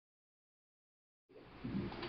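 Dead silence for just over a second, then quiet room noise with a low steady hum cuts in, with a faint knock shortly after.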